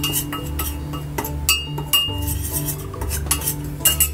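A utensil clinking and tapping against a bowl in a string of short sharp clinks while dry flour and five spice powder are mixed, over quiet background music.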